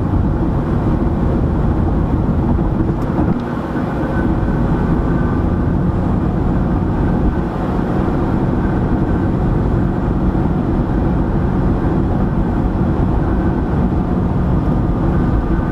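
Steady road noise of a car driving at highway speed, heard inside the cabin: a low, even rumble of tyres and engine with a faint steady whine above it.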